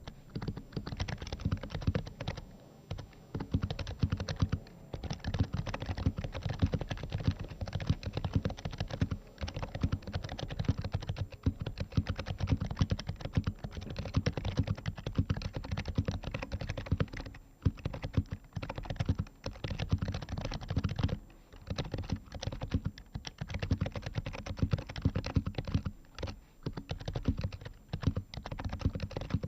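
Fast continuous typing on an HHKB Pro 2 Type S keyboard with Topre switches modded with BKE Redux Light domes: a dense run of soft keystrokes, broken by a few brief pauses.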